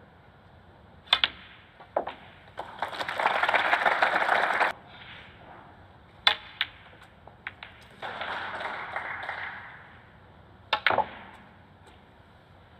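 Snooker balls clicking: the cue tip striking the cue ball and balls knocking together, several sharp clicks, some in quick pairs. Two spells of audience applause, the first loud and cut off suddenly, the second softer.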